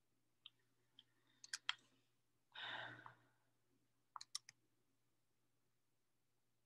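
Near silence: faint room hum with a few scattered light clicks, and one short breath-like rush, the loudest thing, about two and a half seconds in.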